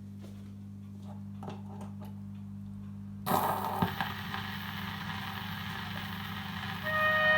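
Playback equipment humming steadily with a few faint clicks, then about three seconds in a sudden thump and a rise of hiss as playback starts, with a second knock shortly after. Faint opening notes of the recording come in near the end.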